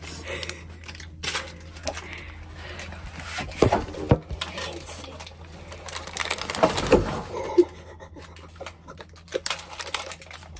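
Plastic candy wrapper crinkling and tearing, mixed with clicks and knocks of a phone being handled close to the microphone, with a few louder bumps around the middle. A steady low hum runs underneath.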